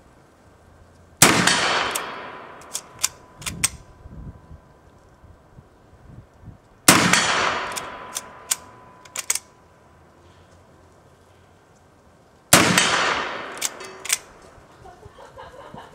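Three shots from an 1860 Henry lever-action rifle replica in .44-40 loaded with black powder, about five and a half seconds apart, each with a long fading echo. After each of the first two shots come several sharp metallic clicks as the lever is worked to chamber the next round.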